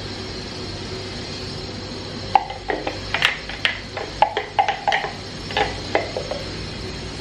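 Kitchenware clinking against glass: a quick, irregular run of about a dozen sharp, ringing clinks, starting a little over two seconds in and stopping near the end, over a steady low hum.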